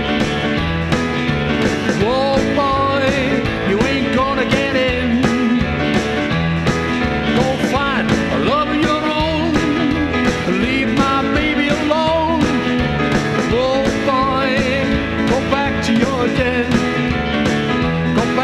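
Rock and roll song in an instrumental break: a lead line bending up and down in pitch over steady bass and drums.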